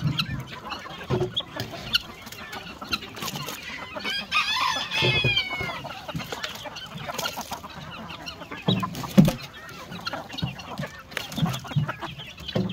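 A flock of young chickens clucking and pecking at a bucket of soaked bread, with one longer, rising-and-falling call about four seconds in and a sharp knock about nine seconds in.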